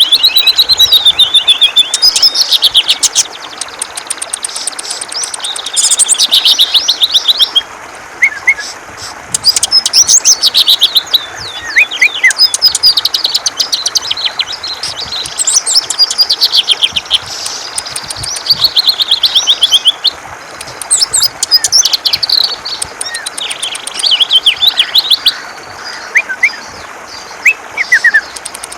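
A cucak ijo (green leafbird) singing loudly in its 'ngentrok' style: phrase after phrase of rapid high trills, each a second or two long with short gaps, broken by a few short falling whistles.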